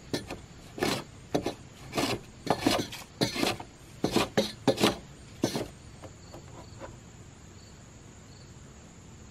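Hand plane shaving a wooden 4x4 leg in about ten quick rasping strokes, taking a little material off so it fits the swing-set bracket; the strokes stop about five and a half seconds in. Crickets chirp faintly throughout.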